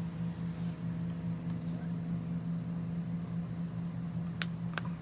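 Small 8-inch wall-mount fan running on its lowest speed: a steady low hum with a soft rush of air. Two sharp clicks come near the end.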